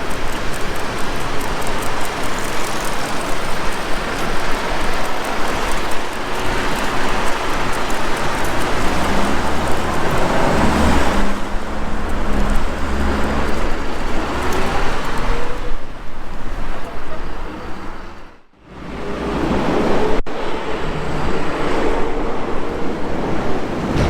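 Road traffic noise, vehicles passing close by one after another, with a brief lull about eighteen seconds in.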